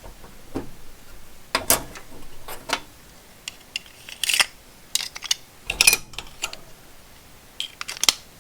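Irregular clicks, taps and short scraping rustles as small knife-blade cases and their replacement blades are handled and opened.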